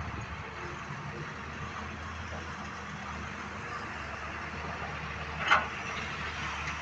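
Excavator's diesel engine running steadily with a low drone. About five and a half seconds in, a single brief sharp noise stands out over it.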